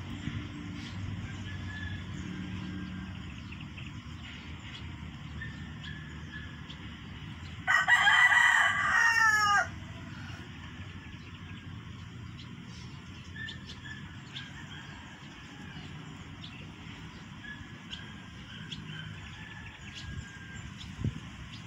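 A rooster crows once, about eight seconds in: a single crow of about two seconds that ends on a falling note. Under it runs a steady low background rumble.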